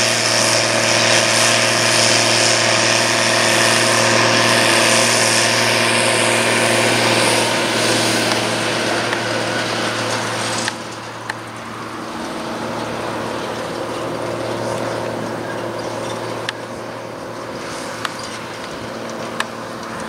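New Holland T7030 tractor's six-cylinder diesel running steadily under load, pulling a Pöttinger loader wagon as it picks up grass silage. A loud rushing hiss sits over the engine for the first half and drops away about ten seconds in. The engine then runs on more quietly with a few light clicks.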